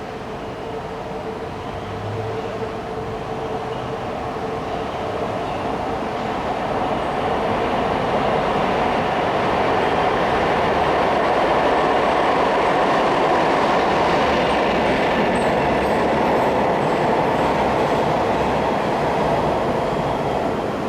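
A diesel-electric freight locomotive, an EMD G12, hauling a brake van along the line. The rumble and rail noise build steadily over the first several seconds, then hold loud and steady.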